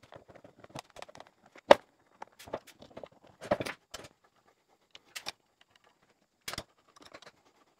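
Scattered light clicks and knocks of a hex key and screwdriver working screws out of a portable bandsaw's plastic handle housing, with parts being handled. One sharp click a little under two seconds in is the loudest.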